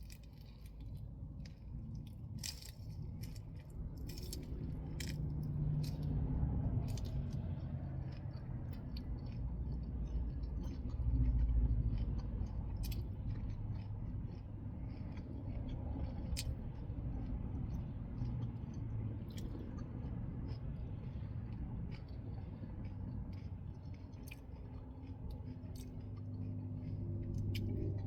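Close-up chewing and biting into crunchy lettuce-leaf taco boats, with scattered crisp crunches. Underneath is a steady low rumble that swells near the middle.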